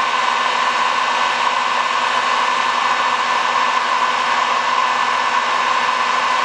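Handheld 500-degree electric heat gun running steadily, its fan blowing a constant rush of hot air with a steady whine, held close to vinyl wrap film to heat it.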